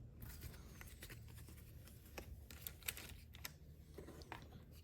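Faint, scattered light clicks and taps of game cards being handled and sorted.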